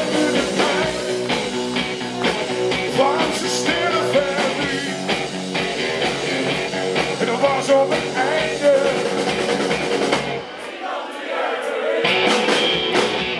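Live rock band playing with electric guitars, bass and drums. About ten seconds in, the low end drops out and the music thins for a second or so, then the band comes back in.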